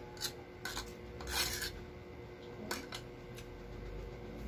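Metal fork scraping and clicking against a food tray: a handful of short scrapes, the longest and loudest about a second and a half in.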